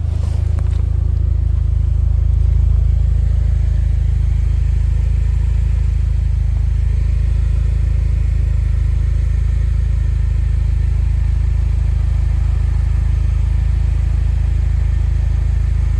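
Steady, loud low rumble of a car running, holding level with no change in pitch.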